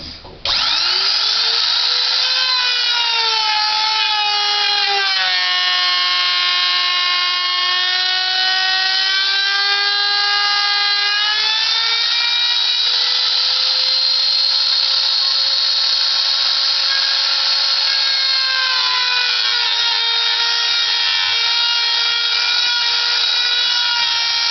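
Skil electric wood router motor spinning up, then running with a high whine. Its pitch sags and recovers a few times as the 12 mm straight bit takes load cutting pine on a homemade CNC copier.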